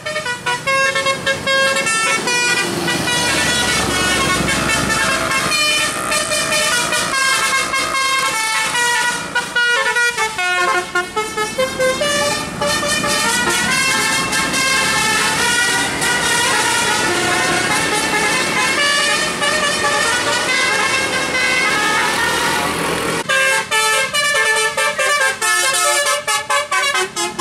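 Tour bus's multi-tone 'telolet basuri' horn playing a tune of quick stepping notes. Near the end the tune gives way to a rougher, more broken-up sound as the bus passes close.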